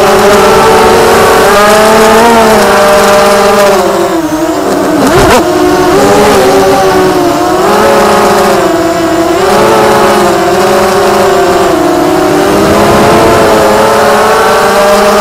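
The brushless motors of an FPV freestyle quadcopter whine as heard from the onboard camera, the pitch rising and falling with the throttle. The pitch drops briefly and there is a sharp click about five seconds in.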